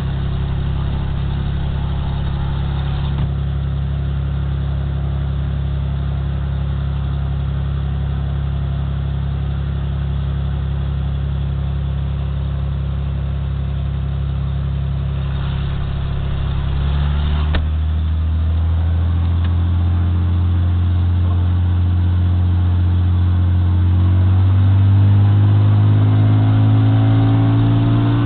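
Cessna 206's six-cylinder piston engine and propeller heard from inside the cabin, running steadily. About two-thirds of the way through, the power comes up and the pitch climbs gradually as the plane begins its takeoff run.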